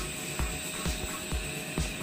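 Background music with a steady beat, a little over two beats a second.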